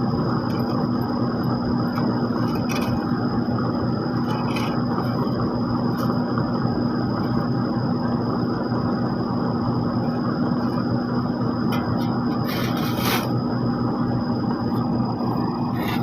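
Diesel engine of road-paving machinery running steadily at a constant speed, with a few short clicks and rattles.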